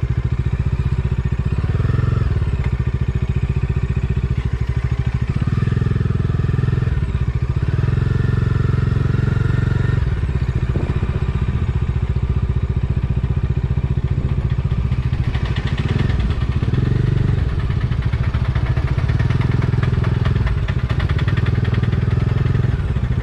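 Motorcycle engine running at low speed, a steady rumble with a regular firing beat, as the bike rolls at walking pace among cattle.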